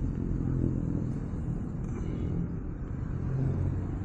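Kawasaki Ninja ZX-25R's inline-four engine running steadily at low revs through an SC Project H2 exhaust, a low even rumble.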